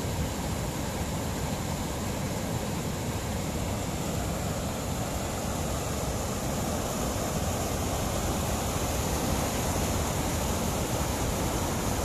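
Muddy floodwater rushing down a stepped concrete spillway and churning into a foamy pool, a steady, unbroken rush of water.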